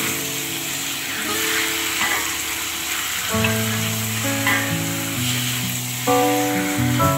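Food sizzling steadily in hot oil in a pan, with background music playing over it.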